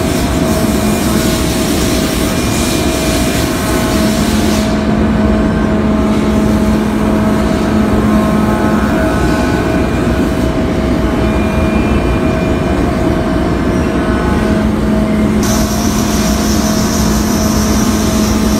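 CNC milling machine cutting a metal boat propeller under flood coolant: a steady machining drone with a constant whine from the spindle and cutter, over the hiss of coolant spray. The hiss drops away about a quarter of the way in and comes back near the end.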